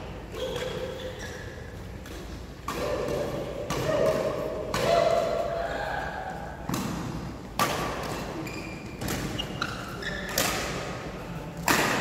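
Badminton rackets striking a shuttlecock in a doubles rally: a string of sharp hits roughly a second apart that ring in the hall, with shoes squeaking on the court mat between shots.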